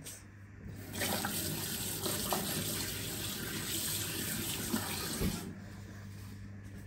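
Kitchen mixer tap running into a stainless steel sink while hands are rinsed under the stream. It starts about a second in and stops a little before the end.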